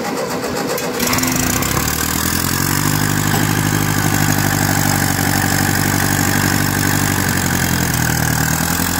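1952 Ferguson TEA's four-cylinder overhead-valve petrol engine being cranked by its starter, which is engaged through the gear lever. It catches about a second in and then runs steadily.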